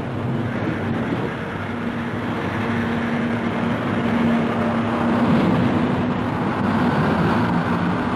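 Diesel engine of a Greyhound intercity coach running steadily as the bus pulls in and turns, a constant hum under a dense mechanical noise that grows a little louder partway through.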